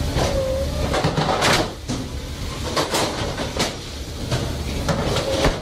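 Fish-processing line machinery and conveyor running with a steady rumble, with clattering knocks of frozen fish blocks and metal parts and a short squeal about half a second in.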